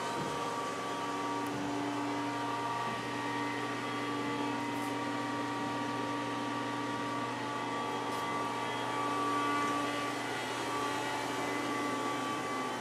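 Star SV20 CNC Swiss-type lathe running under power: a steady machine hum with a few steady whining tones and some faint ticks.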